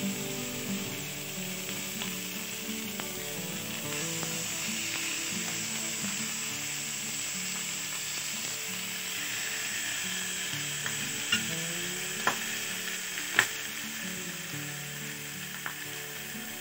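Marinated chicken pieces sizzling steadily on a hot, butter-greased stovetop grill pan. A few sharp clicks come about two thirds of the way in, as more pieces are set on the pan with a utensil.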